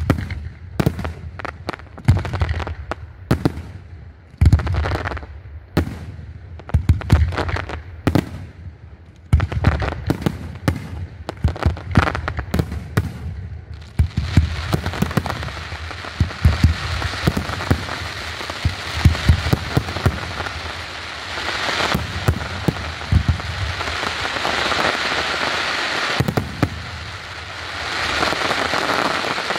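Aerial fireworks shells bursting, at first as a quick series of separate loud bangs. From about halfway a dense, continuous crackling sets in and carries on under further bangs.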